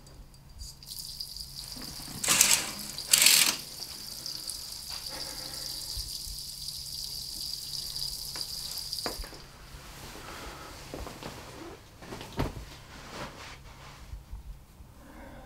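Bathroom tap running into a sink, with two loud splashes about a second apart as water is splashed on a face. The tap shuts off about nine seconds in, leaving a few faint knocks and rustles.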